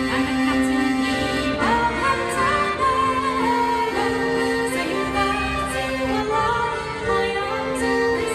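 A woman singing a folk song, accompanied by an accordion holding long steady notes and a bowed fiddle.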